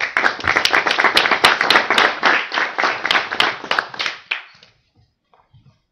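Applause from a small seated audience, many hands clapping at once, dying away after about four and a half seconds.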